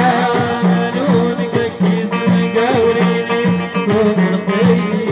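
Moroccan Amazigh folk band playing live: plucked banjos and lutes over hand drums keeping a steady beat, with a voice singing a wavering, ornamented melody.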